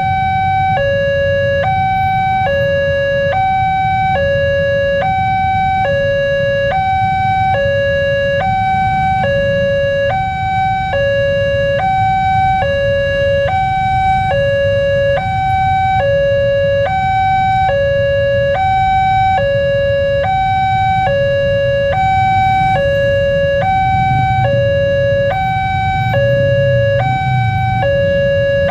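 Indonesian railroad level-crossing warning alarm sounding as a train approaches: an electronic two-tone chime alternating evenly between a higher and a lower note, about one high-low pair a second. A low rumble of waiting road traffic lies beneath it.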